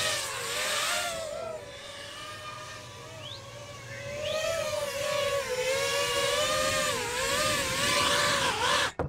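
FPV quadcopter's electric motors and propellers whining in flight. The pitch wavers up and down with throttle changes, and the sound grows louder about halfway through. It cuts out briefly near the end.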